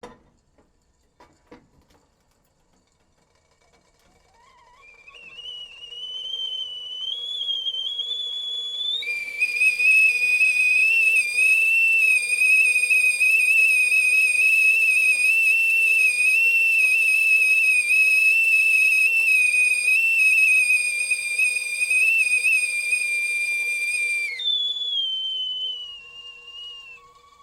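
Whistling kettle coming to the boil. A thin whistle starts about four seconds in and rises in pitch, then about nine seconds in it breaks into a loud, steady, shrill whistle. This holds for some fifteen seconds, then suddenly drops back to a weaker, wavering whistle that fades near the end. A few faint clicks come in the first two seconds.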